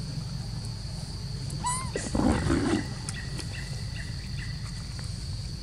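Macaques calling: a brief high squeak, then a short harsh screech about two seconds in, over a steady high insect drone.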